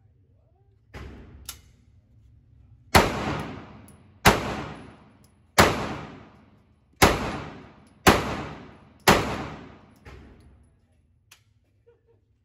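Pistol fired six times about a second apart, each shot with a long echoing tail, after a couple of fainter knocks.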